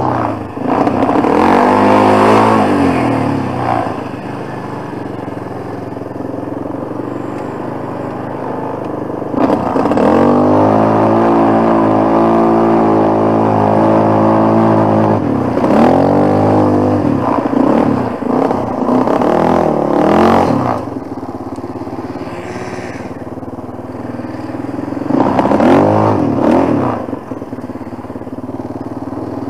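Quad bike (ATV) engine revving up and down while riding off-road, its pitch climbing and falling with each blip of the throttle. The longest high-revving stretch comes about ten to fifteen seconds in, with further bursts around twenty seconds and near the end.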